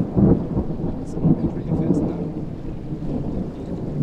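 Wind buffeting a phone's microphone: an uneven, gusty low rumble, strongest in the first half second.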